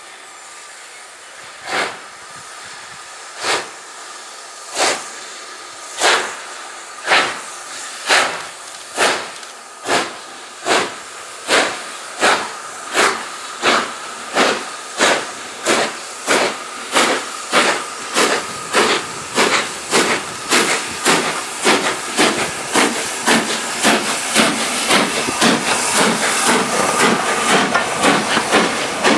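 LNER B12 steam locomotive pulling away with its train, its exhaust chuffs starting about one every second and a half and quickening to about two a second as it gathers speed. The chuffs grow louder as the engine comes close, over a steady hiss of steam.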